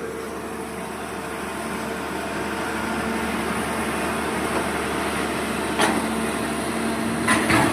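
An engine running steadily, growing a little louder, with a few brief sharp knocks late on.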